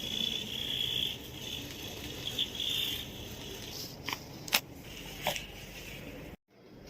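Joints cracking under a chiropractic spinal adjustment: three sharp pops in quick succession about four to five seconds in. A high, wavering whine runs through the first three seconds, and the sound cuts out abruptly for a moment near the end.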